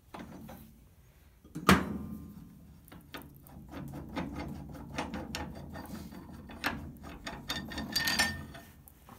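Metal clicks and clunks as a brake lathe arbor is worked loose and pulled out of the lathe spindle: one sharp knock a little under two seconds in, then a run of uneven clicks and rattles.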